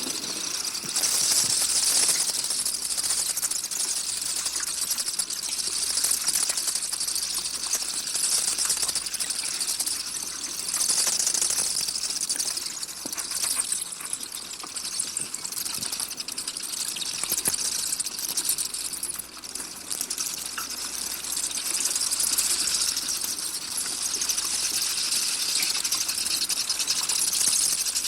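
Free-tailed bats calling: a dense, high-pitched, rapid chittering of clicks that swells and eases in waves.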